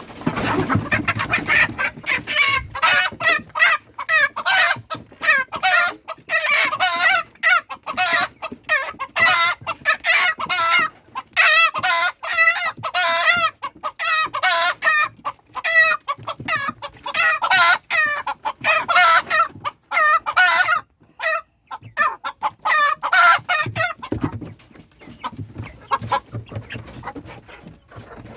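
A crowd of chickens clucking and squawking, short pitched calls following one another almost without pause. The calls thin out and grow quieter near the end.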